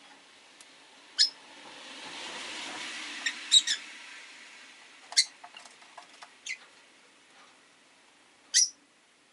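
Rosy-faced lovebirds giving short, sharp, high chirps every second or two, with a few faint ticks in between. Around the middle, a soft rush of passing street traffic swells and fades behind them.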